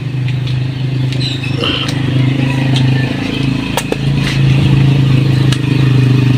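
A small engine running steadily at idle, with a few sharp metallic clicks about four and five seconds in.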